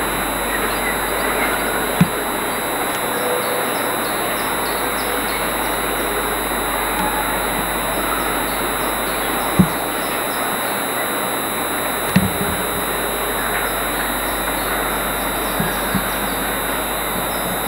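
Freight train of covered wagons rolling away along the main line, a steady rumbling noise with a few sharp knocks from the wheels and wagons.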